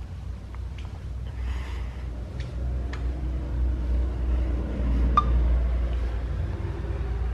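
Oldsmobile 330 V8 idling under the car: a steady low rumble that grows a little louder toward the end, with a few faint clicks.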